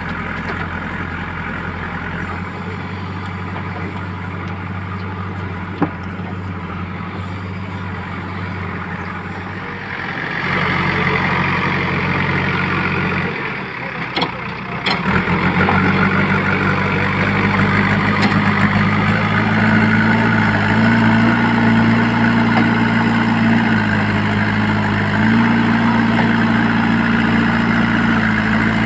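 JCB 3DX backhoe loader's diesel engine running under work. It grows louder about ten seconds in, dips briefly a few seconds later, then runs harder with its pitch stepping up and down.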